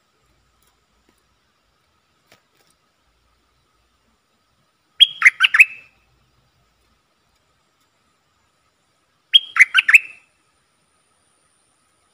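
Bulbul singing two short phrases about four seconds apart, each about a second of quick, clear notes that open on a high note and fall.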